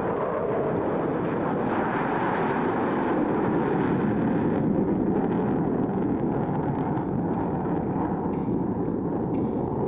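Jet noise of a Grumman F-14 Tomcat flying past, a steady rushing sound that swells to its loudest about four seconds in and then eases slightly.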